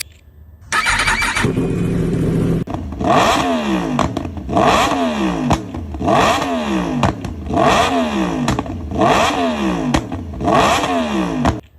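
2021 Yamaha R1's crossplane inline-four, breathing through an aftermarket SC Project exhaust, runs briefly at a steady idle. It is then revved six times in quick succession, each blip rising and dropping back. The sound cuts off abruptly near the end.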